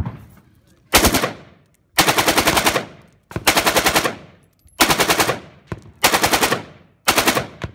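Rifle Dynamics AK-74 in 5.45x39mm firing six full-auto bursts, about ten rounds a second; the first burst is short, the rest last close to a second each, with the shots echoing off the range berm between bursts.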